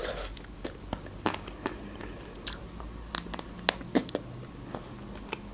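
Close-up eating sounds of a chocolate-coated Magnum ice cream bar: the thin chocolate shell cracks in sharp, irregular crackles as it is bitten, with soft chewing and mouth sounds between them.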